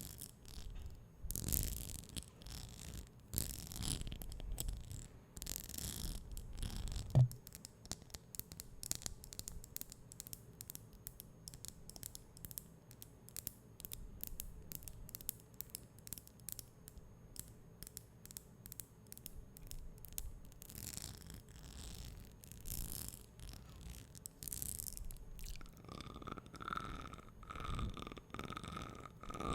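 Close-miked ASMR trigger sounds: soft swishes, then a long run of rapid light clicks, then more swishes, typical of a brush and fingertips tapping the screen mixed with mouth sounds. A steady pitched tone begins near the end.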